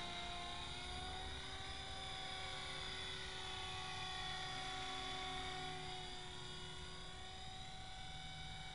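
EXI 450 Pro electric RC helicopter (an Align T-Rex 450 Pro clone) in forward flight: a steady motor-and-gear whine with rotor whir, its pitch drifting gently up and down as it speeds up and turns.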